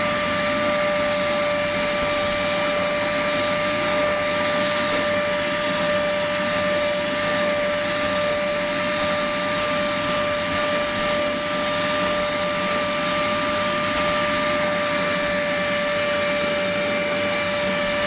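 Caramba wet/dry vacuum cleaner running steadily while vacuuming a car's interior: a constant whine over the rush of sucked air.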